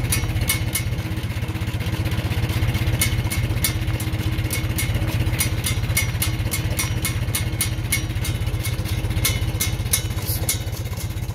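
1941 Farmall M tractor's four-cylinder engine running steadily as the tractor drives slowly along, with scattered light ticks and rattles over the low exhaust pulse.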